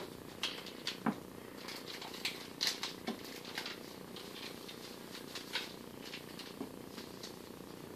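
Small scissors snipping open supplement sachets, with the packets crinkling as they are handled: irregular light clicks and rustles, one or two a second, over a faint steady hum.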